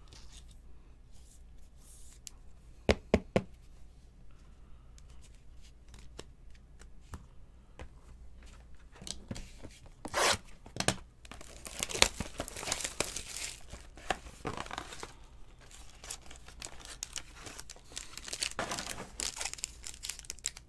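Hands handling trading-card packaging. A few sharp clicks come about three seconds in, as cards in plastic holders are knocked and set down. Later a cardboard hobby box is torn open, and near the end a foil pack wrapper crinkles.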